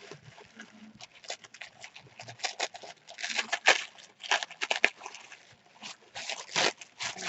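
Wrapping around a package crinkling and rustling as it is handled and opened: a run of quick crackles, loudest in clusters about three to five seconds in and again near the end.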